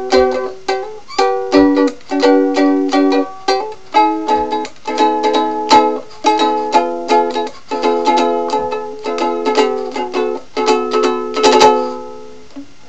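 Ukulele chords strummed in a steady rhythm, the chord changing every second or so. Near the end comes a quick flurry of strums that rings out and fades.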